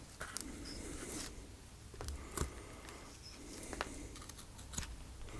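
Light handling noises from a freshly set silicone mould being picked up and handled: a few small clicks and taps with soft rubbing between them.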